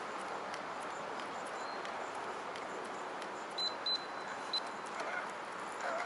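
Steady outdoor background hiss, with a few short high chirps a little past halfway.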